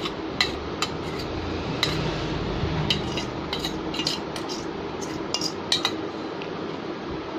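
Steel spoon scraping the hot tempering out of a small tadka pan, with a string of irregular sharp metal clinks over steady background noise. The clinks thin out about six seconds in.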